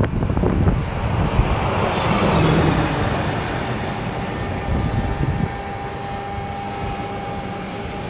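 Quiko Rotello electric swing-gate operators running steadily as they drive the two leaves of an aluminium gate closed, with a faint steady whine in the second half. Gusty wind buffets the microphone throughout.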